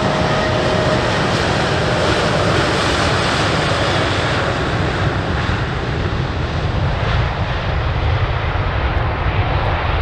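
Boeing 777X's twin GE9X turbofan engines at high thrust as the jet rolls down the runway for takeoff: a loud, steady rushing roar. A faint whine fades out about a second in.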